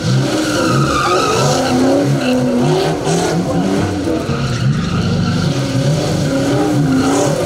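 A car doing donuts: the engine revs hard, its pitch rising and falling over and over, while the spinning rear tyres squeal and skid across the pavement.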